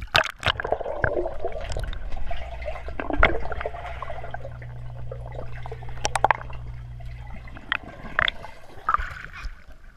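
Pool water heard underwater through a submerged camera: muffled rushing and gurgling with sharp clicks and knocks, the strongest near the start and about six seconds in. A steady low hum runs through the middle few seconds.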